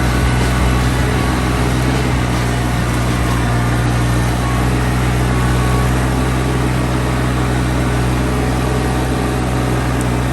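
RK25 compact tractor's diesel engine running steadily at a constant speed.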